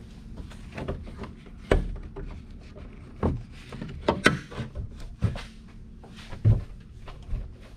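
Jeep Gladiator hood being unlatched and raised: a string of about six sharp clunks and knocks, the loudest around the middle.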